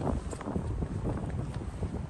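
Wind buffeting the microphone in an uneven low rumble, with a few faint footfalls of someone walking.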